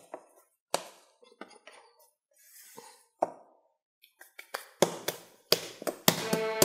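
Hands handling a ball of sourdough bread dough on a floured worktop: scattered soft taps, clicks and light rustles as the dough is picked up and worked, busier in the last two seconds.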